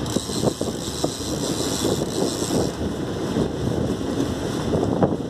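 Wind rushing over the microphone on an open boat at sea, with a few light knocks.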